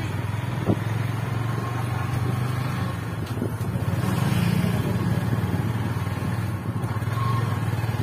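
Motorcycle engine running steadily under way, heard from the rider's seat. The engine note rises a little for a second or two around the middle.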